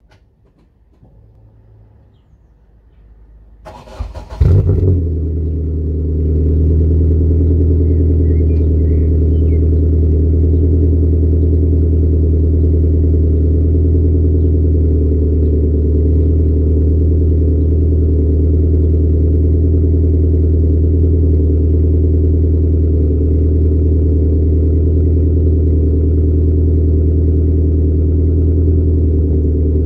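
Ford Escort GTi estate's engine cold-started after sitting unused for a month, heard at the exhaust tailpipe: quiet at first, it catches about four seconds in with a short flare of revs, then settles into a steady idle.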